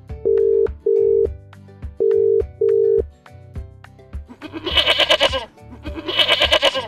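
A telephone ringing tone beeping four times in two pairs, then a goat bleating twice with a wavering call, over children's background music with a steady beat.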